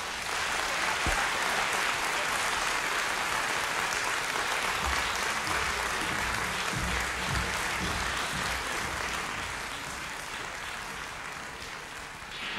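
Theatre audience applauding steadily, the clapping easing off slightly near the end.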